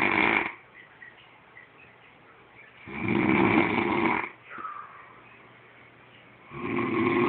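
A person snoring heavily, like a horse: long, loud, noisy snores about every three and a half seconds, with quiet breathing between. One snore ends just after the start, a full one comes about three seconds in, and the next begins near the end.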